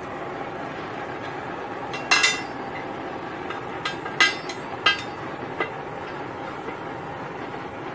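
A handful of sharp metal-on-metal strikes on steel workpieces: a quick double strike, then four single taps spaced under a second apart. They sound over a steady background hiss.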